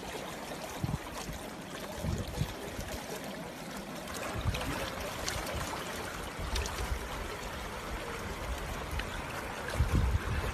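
Water running and trickling over rocks between shallow rock pools, a steady rushing hiss, with irregular low rumbles now and then.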